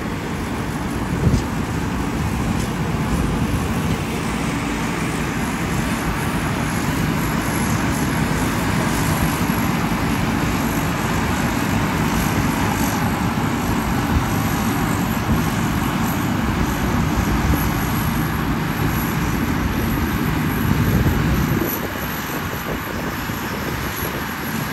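Rice combine harvester running steadily at work, its engine and threshing machinery giving a dense, continuous mechanical drone. A short knock comes about a second in, and the sound gets a little quieter near the end.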